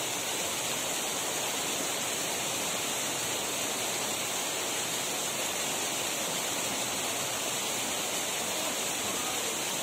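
Shallow mountain stream rushing over rocky rapids: a steady, even rush of water.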